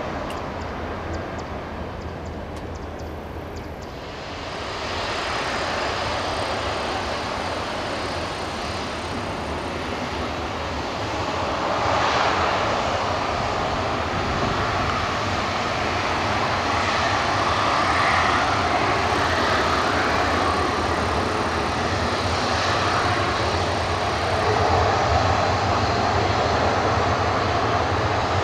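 ANA Boeing 737-500's CFM56 jet engines running as it taxis past close by, a steady roar that grows louder about twelve seconds in.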